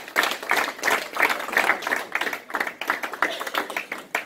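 A group of people applauding: many quick, overlapping hand claps.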